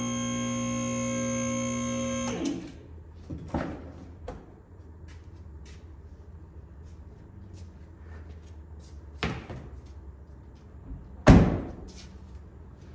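A held, distorted guitar chord of background music cuts off about two seconds in. Then come a few separate sharp knocks and clanks, the loudest a little before the end.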